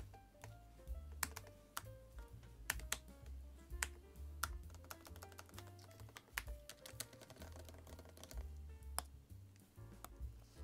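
Butterfly keys of a MacBook 12" 2017 keyboard being pressed, irregular clicks about two to three a second. The keys are not registering: the keyboard fault is still there. Background music plays throughout.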